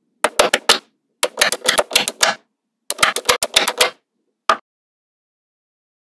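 Small magnetic balls clicking sharply against each other as they snap together and are pulled apart, in three quick runs of clicks and then a single click about four and a half seconds in.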